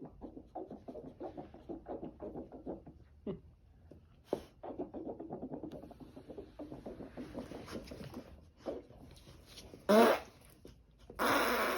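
A dog making a long string of quick grumbling vocal pulses, then a short loud yelp about ten seconds in and a drawn-out whine starting near the end.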